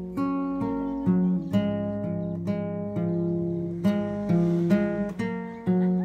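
Background music: acoustic guitar chords struck about twice a second.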